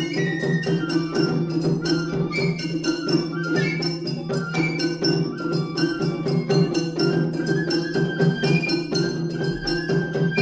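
Matsuri-bayashi festival music: shinobue bamboo flutes playing a high melody over fast, dense strikes of shime-daiko and a larger taiko drum.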